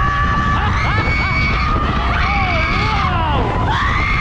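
Riders on a fairground thrill ride screaming, several long overlapping screams that hold and slide in pitch, over a steady low rumble.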